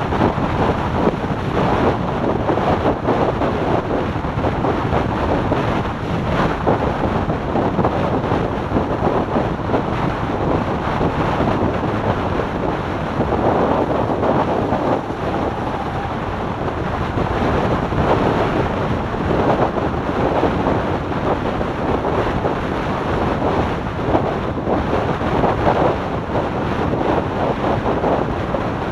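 Heavy wind rush buffeting the microphone of a motorcycle at highway speed, with the bike's running and road noise blended underneath.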